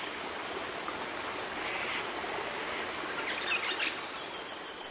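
Steady outdoor ambient hiss, like running water, with a few faint bird chirps, most noticeable about three and a half seconds in.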